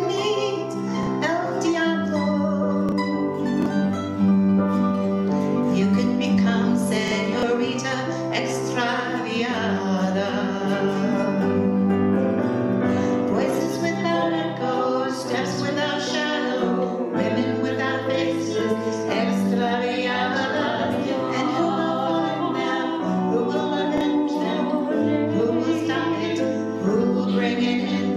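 Small acoustic band playing on grand piano, acoustic guitar and mandolin, with low notes held for a second or two under the plucked strings.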